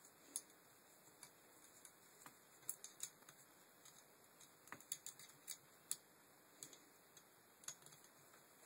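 Faint, irregular clicks and ticks of plastic and metal parts as a Land Rover Freelander MK1 tailgate window regulator's cable slider bracket is worked by hand, with a quick cluster of sharper clicks around five seconds in.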